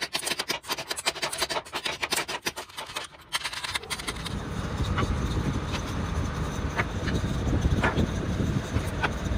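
Quick repeated rubbing strokes on wood for about four seconds, then a steady low rumble with a few sharp clicks.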